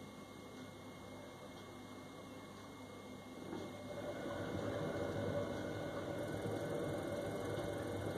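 Worcester Bosch 29CDi Classic combi boiler humming low, then about three seconds in its gas burner comes on and a steady, rough rumble swells up and holds. The rumble on firing is a fault that ends in the boiler throwing its EA error code.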